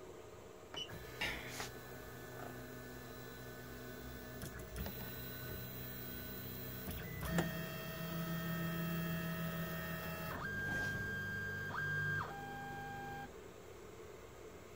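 Stepper motors of a homemade 3D printer whining as the axes drive during an auto-home: steady motor tones that change pitch in steps several times, with a click about halfway, stopping shortly before the end.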